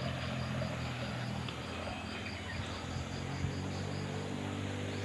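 Small stream running, a steady wash of water, with an insect chirping in a steady pulse about three times a second and a low steady hum underneath.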